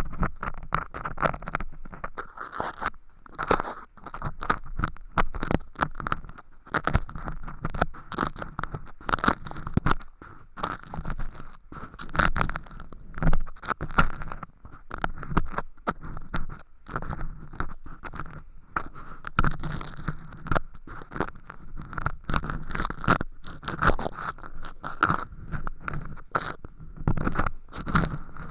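Earpick scraping and crumbling thin, crispy sawdust-like flakes inside a transparent ear-canal tube on a binaural microphone. It makes a steady stream of irregular scratchy crackles and clicks.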